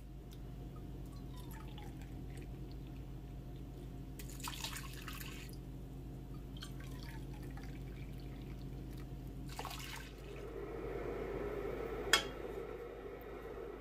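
Water poured from a measuring cup into a stainless steel pot of red lentils in short splashes, with dripping and water moving in the pot. A single sharp clink near the end.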